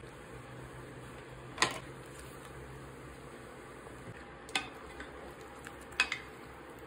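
A metal cooking utensil clinks against a cooking pot three times, the last a quick double tap, over a faint steady hiss.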